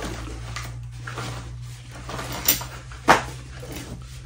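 Loose chainsaw chain clinking and rattling, metal on metal, as it is wound by hand onto a wire spool, with a few sharp clicks scattered through it.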